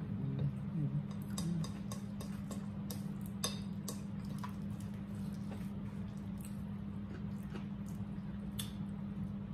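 Mouth sounds of people eating fried chicken and rice: scattered small clicks and smacks of chewing, with a fork clicking against a plate, over a steady low hum.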